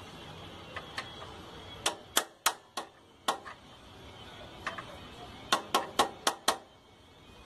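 A small sledge hammer striking the pivot pin of a Yamaha YBR Factor 125's center stand, driving the pin fully home. Two runs of sharp blows, about five in each, split by a pause of about a second, with a few lighter taps at the start.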